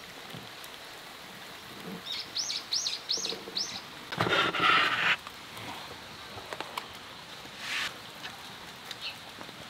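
A bird chirps about five times in quick succession, high-pitched. Just after, a burst of noise lasts about a second and is the loudest sound. A fainter, higher burst and a few small ticks follow near the end.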